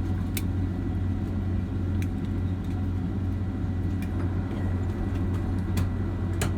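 Steady low rumble inside the cabin of a Boeing 767-300ER just after arrival, with a handful of short sharp clicks scattered through it.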